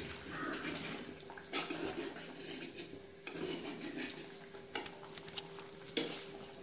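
A spoon stirring fish curry in an unglazed clay pot, scraping and now and then knocking sharply against the pot, loudest about a second and a half in and again near the end. A faint steady hum runs underneath.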